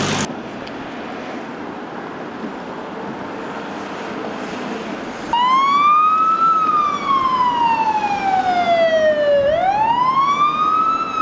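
Ambulance siren wailing, coming in about halfway through: a quick rise in pitch, a long slow fall, then another rise near the end. Before it there is only a steady background noise.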